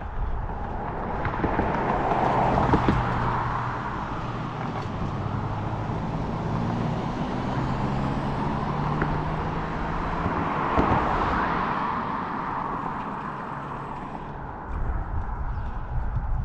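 Motor traffic passing on the road: tyre and engine noise swells and fades as vehicles go by, loudest about two and a half seconds in and again about eleven seconds in, with a steady engine hum between. Wind rumbles on the microphone near the end.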